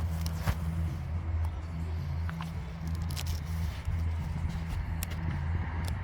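Car engine idling with a steady low hum. A few light clicks and knocks are heard over it.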